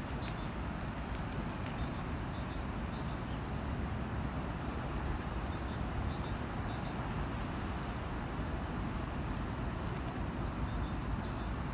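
Steady rushing outdoor background noise, with a small bird chirping briefly several times.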